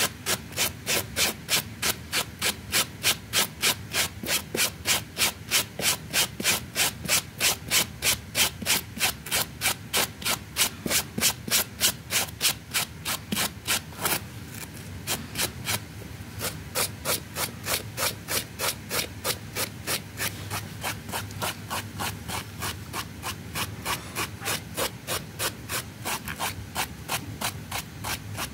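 Stiff brush scrubbing the pile of a wet rug in quick, even back-and-forth strokes, about three a second. The strokes pause briefly about halfway through, then carry on a little softer.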